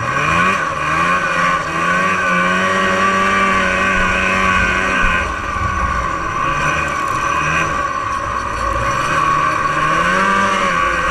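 1989 Arctic Cat Jag 440's fan-cooled two-stroke engine under throttle, revving up at the start and holding high revs, easing off about five seconds in, then climbing again near the end.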